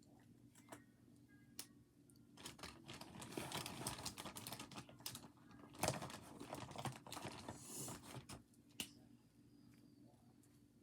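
A dense run of rapid small clicks and taps, much like typing, from about two seconds in until about eight seconds in, with a few scattered clicks before and after.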